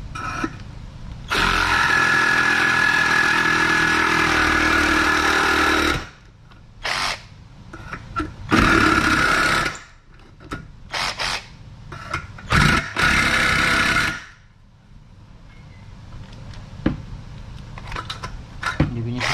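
Cordless reciprocating saw cutting 1.2 mm hollow steel section. It runs steadily for about four seconds, then goes in a string of short bursts as the blade snags in the steel and the saw stops and restarts again and again.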